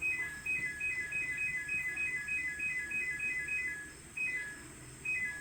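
Quiet background music: a light, repeating melody of short bell-like notes that step downward in groups of three, with a brief pause near the end.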